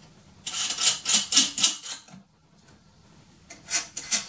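Rapid clicking and rattling of small metal parts on an FLSUN S resin 3D printer, worked by hand at its screws. It comes in two spells: one from about half a second in to two seconds, another starting near the end.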